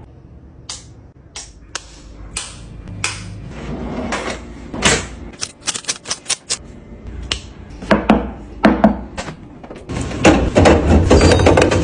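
Items being handled while restocking a fridge: a run of sharp plastic-like clicks and taps that come faster in the middle, then a denser, louder clatter and rustle near the end.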